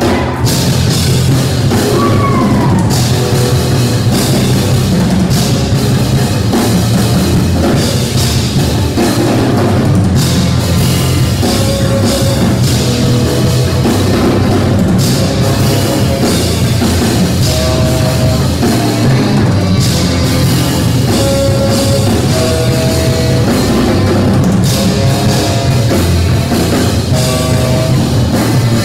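Live jazz trio playing loud and hard-driving: tenor saxophone, electric bass through an amp, and a busy drum kit. The saxophone plays short held notes over the bass and drums through the second half.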